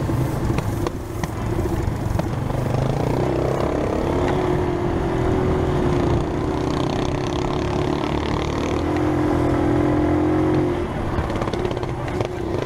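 Beta Alp trail motorcycle engine running steadily at low revs on a slow ride, easing off briefly near the end.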